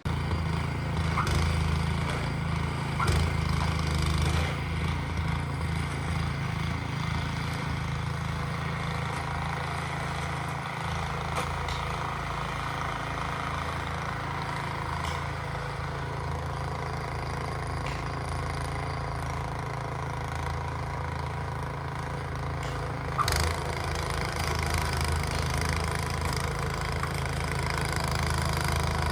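An engine running steadily with a low, even hum, and one sharp click about 23 seconds in.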